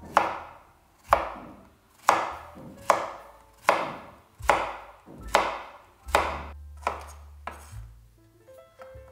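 Chef's knife chopping zucchini on a wooden cutting board: about ten even, sharp knife strikes on the board, a little more than one a second, the last few fainter.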